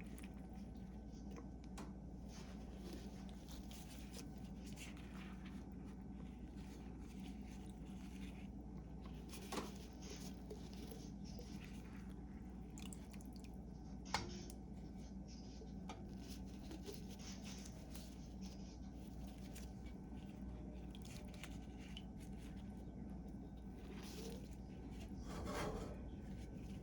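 Faint handling of boiled ginger slices being lifted into a jar: two light clicks, about ten and fourteen seconds in, and a soft scrape near the end, over a steady low hum.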